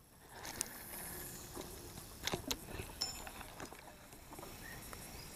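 Faint riverside ambience: a low, even hiss with a few soft ticks and knocks scattered through it, and a brief high chirp about three seconds in.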